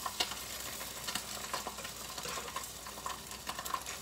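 Eggs sizzling as they fry in a pan, with scattered light taps and scrapes of a utensil against the pan while a bit of eggshell is fished out.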